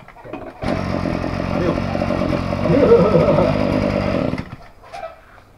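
Small two-stroke brush-cutter engine running for about four seconds on its newly fitted carburetor, started with a cordless drill, then cutting out.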